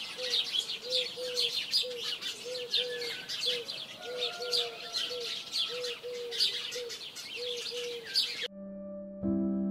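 Many small birds chirping densely, over a low hooked call repeated about twice a second. The birdsong cuts off abruptly shortly before the end, and a soft, sustained music chord comes in.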